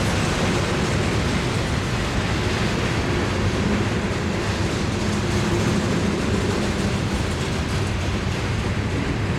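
Covered gondola cars of a freight garbage train rolling past on the rails, a steady, continuous wheel-on-rail noise.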